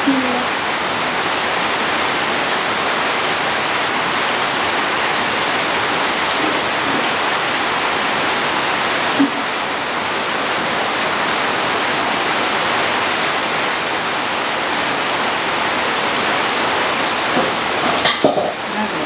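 Steady, even rush of water. There is a short click about nine seconds in and a few clicks near the end.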